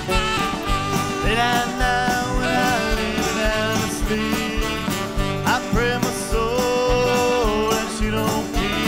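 Live band playing a country-style song with acoustic guitar, saxophone, bass guitar and a steady drum beat.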